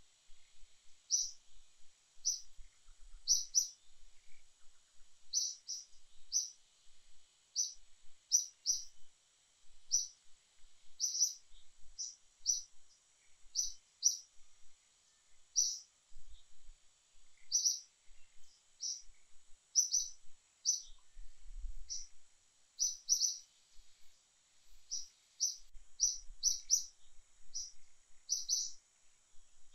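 A small bird chirping: short high chirps, often in pairs, about one or two a second, over a faint steady high hum.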